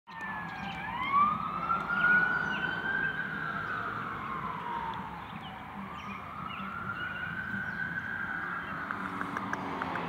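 Emergency vehicle siren in a slow wail, sweeping up and down in pitch about twice.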